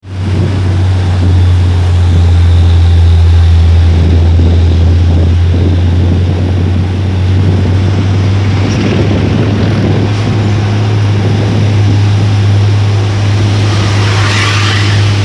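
Hino dump truck's diesel engine running with a loud, steady low drone. There is a short burst of hiss near the end.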